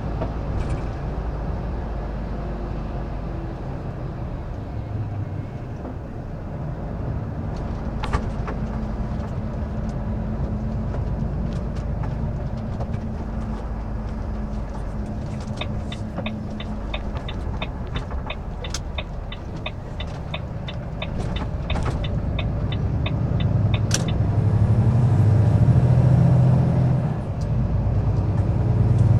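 Truck's diesel engine running, heard from inside the cab, with the turn signal ticking about three times a second through the middle. The engine grows louder near the end as the truck accelerates.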